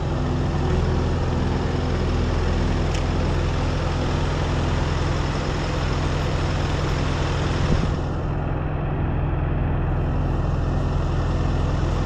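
An engine on a heavy machine running steadily at a constant speed, with a single knock about eight seconds in.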